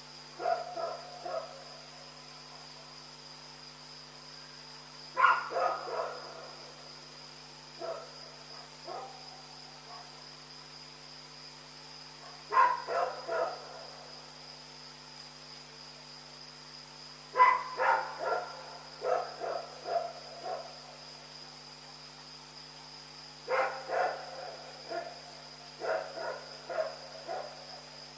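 A dog barking in runs of several quick barks, a run every four to six seconds with a few single barks between. This is persistent night-time nuisance barking.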